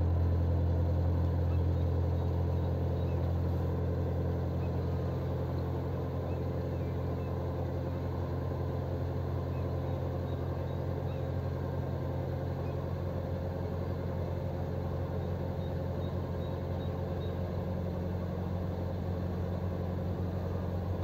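Motorboat engine running steadily at low speed, a deep even drone, as the boat backs slowly away from the dock. It eases off slightly in the first few seconds, then holds steady.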